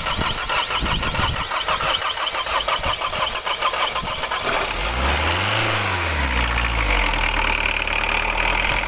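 Diesel car engine cranking on the starter for about four and a half seconds before it catches, revs up briefly, and settles into a steady idle. A hard start, which the owner says is always the case.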